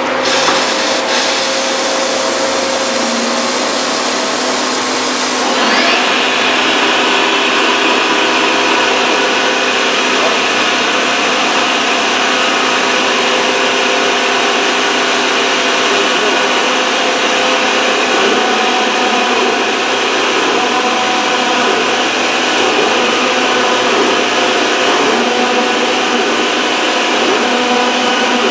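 Hyupshin Drill Master CNC gantry drilling machine running, its spindle drilling with coolant spraying under the head: a steady mechanical whir with hiss. About five seconds in the sound turns brighter and a little louder, then holds steady.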